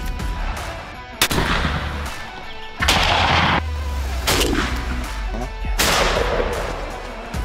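Four shotgun blasts about a second and a half apart, each followed by a long echoing tail.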